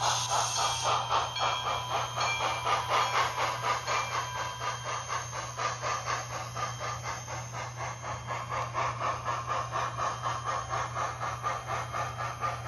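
Steam-locomotive chuffing from the TCS WOW121 sound decoder in an HO-scale brass Santa Fe 2-8-0, played through its small 1-watt speaker. The chuffs come rapid and even, about four or five a second, with hiss, and grow slightly fainter as the locomotive runs away.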